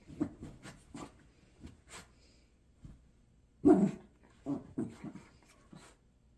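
West Highland White Terrier wriggling on its back on a blanket, making a series of short vocal sounds with the rustle of the fabric; the loudest comes a little before four seconds in.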